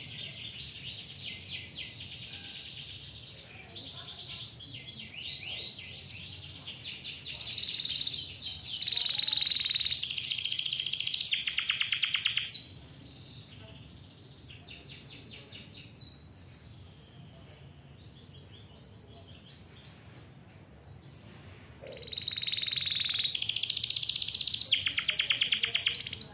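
Domestic canary singing a long song of fast trills and rolls. It is loudest in rapid rolls a third of the way in and again near the end, with a softer stretch between.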